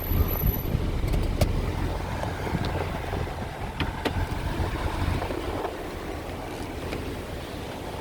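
A car running, heard from inside the 2002 Toyota Solara convertible: a steady low rumble of engine and road noise, with a few sharp clicks about one and a half, four and a few seconds in.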